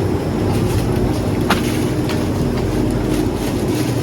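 Steady low mechanical rumble with a hum, and a single short click about one and a half seconds in.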